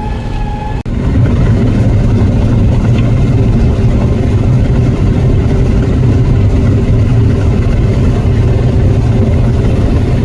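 Heavy farm-vehicle engine running steadily under load with a deep, continuous rumble. It cuts briefly just under a second in, then carries on louder.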